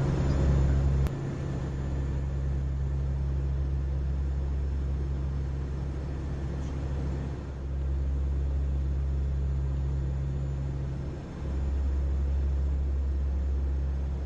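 Steady low drone of a NOAA WP-3D Orion's four turboprop engines heard inside the cockpit, dipping briefly twice in the second half.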